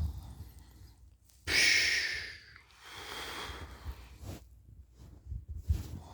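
A sleeping person's snore trails off. About a second and a half in comes a loud, airy breath through the open mouth, then a softer breath, and a few faint clicks near the end.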